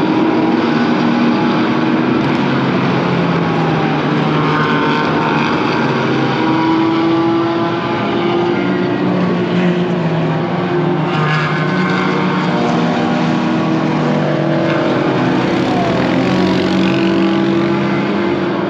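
Several sports cars driving on a race circuit, their engines overlapping and rising and falling in pitch as they pass one after another.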